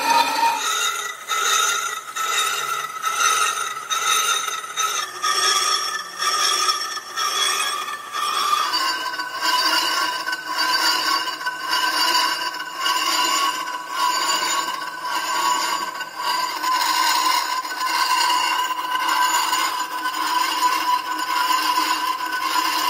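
Lathe tool cutting the inside face of a cast iron truck brake drum: a steady metallic scraping squeal with several ringing tones that pulse about one and a half times a second. The tones shift in pitch about eight seconds in.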